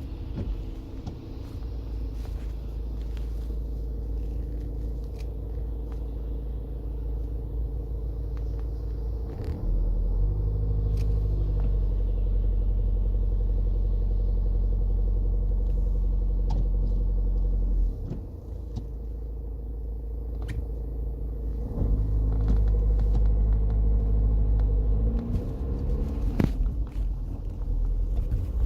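Audi A4 2.0 TDI four-cylinder diesel engine idling, then revved up twice and held at raised revs for several seconds each time, with the knocking noise the car is being recorded for.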